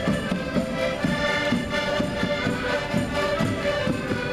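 Many concertinas (diatonic button accordions) playing a traditional tune together, with held chords over a steady beat in the low notes.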